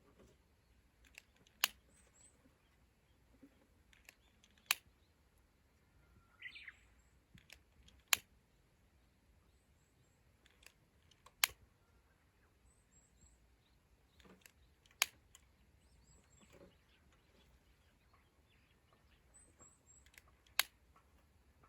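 Wood fire crackling, with a sharp single pop every few seconds, about six in all. Small birds chirp faintly, with one clearer call about six seconds in.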